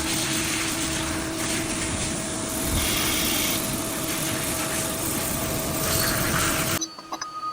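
A machine tool machining a pneumatic actuator cylinder: a loud, steady noise of cutting with a hum under it, which stops abruptly near the end.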